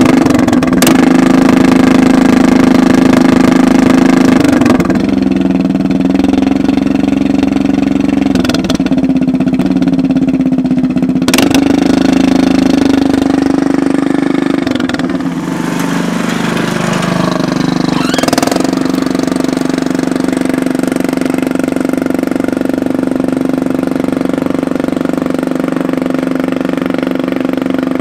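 Riding lawn mower engine running through a homemade four-tip exhaust, a loud steady drone. Its pitch dips and comes back up several times as the throttle changes, then holds steady for the second half.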